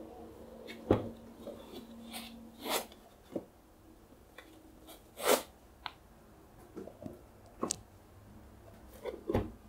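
Packing material being handled: foam inserts and a cardboard box and folder rubbing and scraping, with light taps. The strongest scrapes come about a second in, just before three seconds and about five seconds in.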